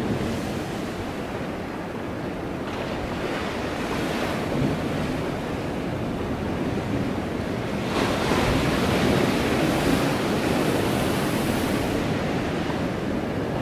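Wind blowing on the microphone: a steady rushing noise that swells in gusts, strongest in the second half.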